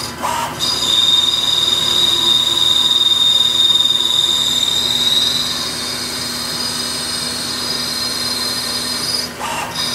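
Hardinge HLV CNC lathe turning the outside diameter of a rifle barrel tenon, cutting dry, with a steady high-pitched whine over a low hum. The whine is strongest for the first half, and there are short breaks just after the start and near the end.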